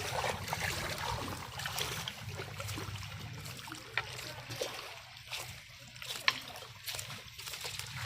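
Shallow water sloshing and trickling as someone works through it, with a few short sharper sounds, the clearest about four and six seconds in.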